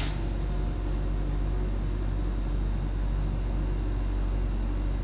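Steady low hum of background room noise, unchanging throughout, with no distinct strokes or marker squeaks standing out.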